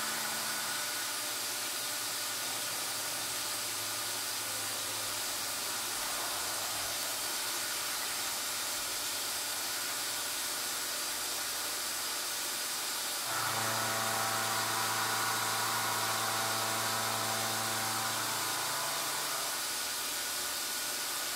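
A machine tool running in the background, making alignment pins: a steady hiss, joined about 13 seconds in by a louder motor hum with several steady tones.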